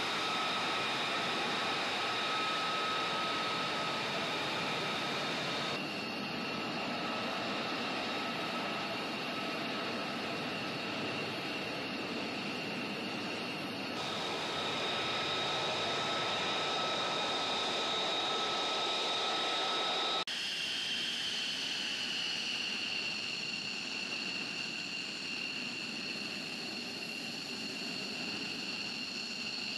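Fighter jets taxiing at idle thrust: a steady jet-turbine hiss with a high whine on top, from F-35A and F-15C aircraft. The sound changes abruptly a few times as clips change, and in the last section, with an F-15C rolling past, the whine starts a little higher and settles lower.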